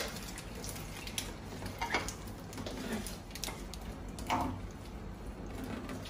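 Plates and cooking utensils being handled on a kitchen counter: scattered light knocks and scrapes.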